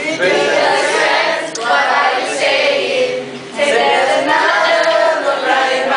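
A group of voices singing together without instruments, a crowd singing along in loud phrases with short breaks between them.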